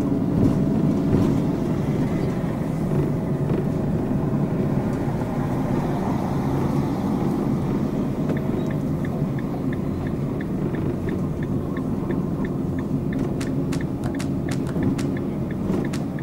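Camper van driving slowly, heard from inside the cab: a steady low engine and road rumble. About halfway through, a regular light ticking joins in.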